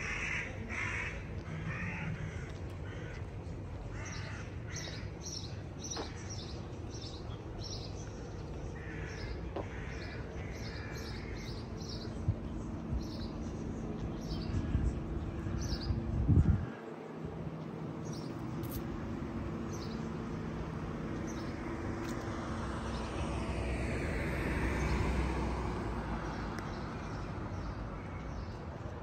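Birds calling: a run of harsh calls and many quick, high chirps through the first half. A low thud about halfway through is the loudest moment, and near the end a wash of noise swells up and fades away.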